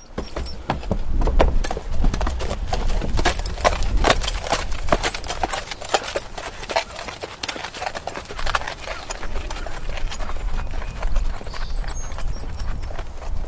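A horse walking, its hooves clip-clopping in an uneven run of strikes over a low rumble.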